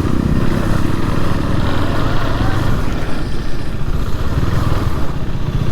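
KTM Duke 390's single-cylinder engine running steadily while the motorcycle is ridden along the road.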